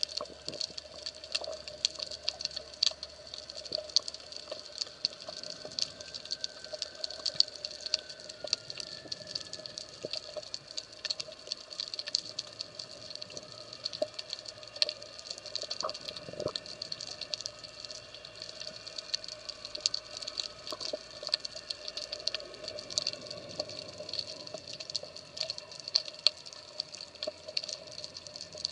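Underwater ambience on a rocky reef: a dense, irregular crackle of sharp clicks throughout, over a steady low hum and a steady high hum.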